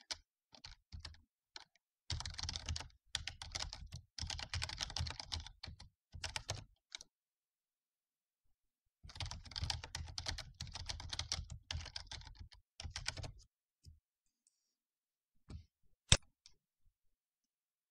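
Typing on a computer keyboard: two runs of quick keystrokes with a pause between them, then a few single key presses, one of them sharp and loud near the end.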